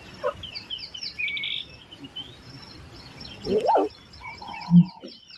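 Several small birds chirping and twittering in quick, overlapping calls. About two-thirds of the way in a louder call rises and falls. A short low sound follows a second later and is the loudest moment.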